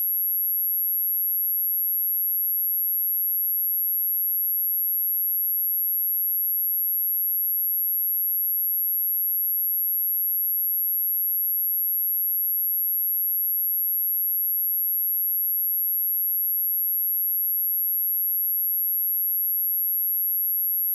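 A steady, high-pitched pure sine tone at 11607 Hz, held at one unchanging pitch and level: a speaker test tone.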